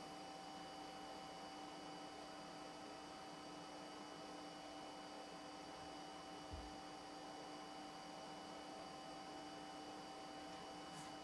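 Faint steady electrical hum with several constant tones over a low hiss, and a single soft low thump about two-thirds of the way through.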